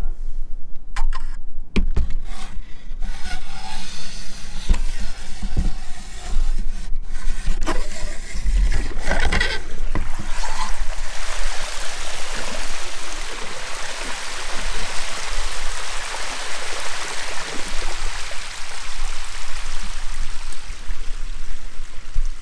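Knocks and scrapes for the first ten seconds or so, then a steady rush of splashing water.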